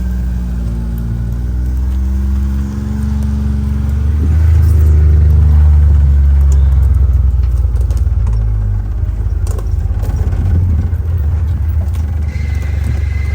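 John Deere Gator utility vehicle's engine running as it drives over rough woodland paths, its pitch wavering with the throttle and getting louder for a few seconds about four seconds in. A few short knocks and rattles come in later.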